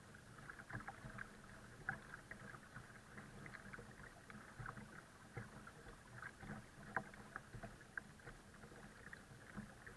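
Faint water splashing and gurgling in the wake of a boat towing a folding kayak, irregular small splashes over a steady low hum.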